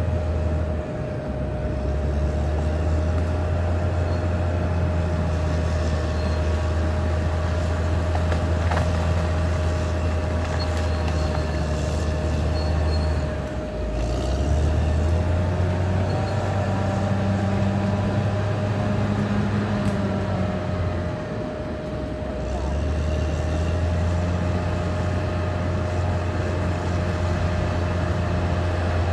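Caterpillar D6R XL bulldozer's diesel engine running under load: a steady low drone with a constant whine over it. The drone briefly drops off about a second in, again near the middle, and for a moment about three-quarters of the way through.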